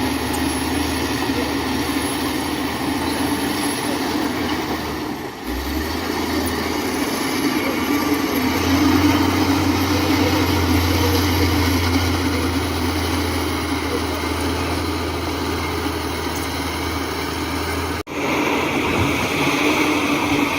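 Heavy earthmoving machinery running steadily with a deep engine hum. The sound dips briefly about five seconds in and cuts out for an instant near the end.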